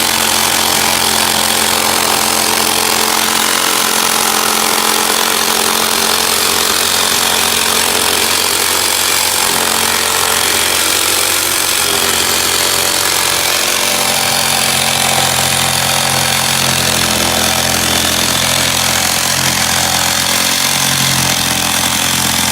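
Electric jigsaw running continuously while cutting through a wooden panel, a steady loud buzzing saw noise over a motor hum.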